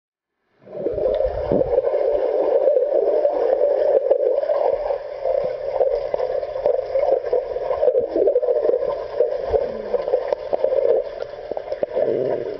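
Swimming-pool water churning and splashing around a swimmer: a steady rush that starts suddenly about half a second in.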